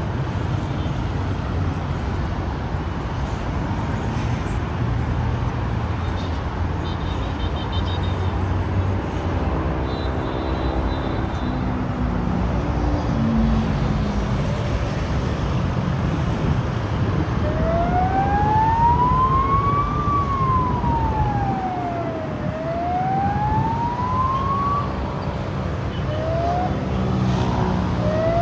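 Steady city traffic noise, with an emergency-vehicle siren starting about two-thirds of the way in: a wail rising and falling twice, then two short rising whoops near the end.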